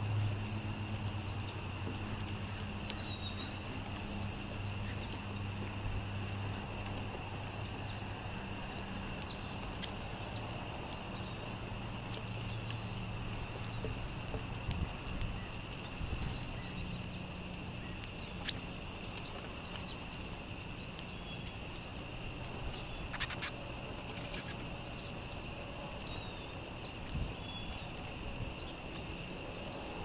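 Sparrows feeding at scattered seed, giving many short, high chirps scattered throughout, over a steady high-pitched tone and a low hum that fades out about halfway through.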